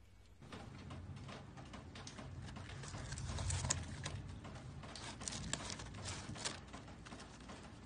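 Irregular rustling and light tapping of paper food packaging as a cat paws into a paper carton of onion rings, loudest about three and a half seconds in.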